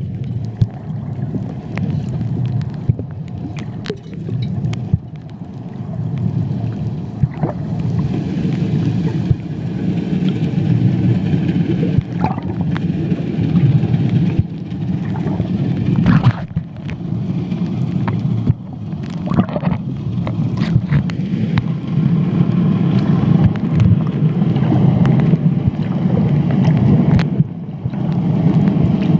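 Underwater sound picked up through a camera's waterproof housing: a steady muffled low rumble of water, with scattered sharp clicks and crackles.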